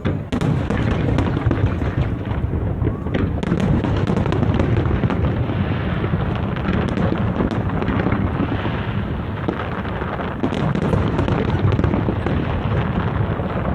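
Large aerial fireworks display: a dense, unbroken barrage of shell bursts, booms and crackles.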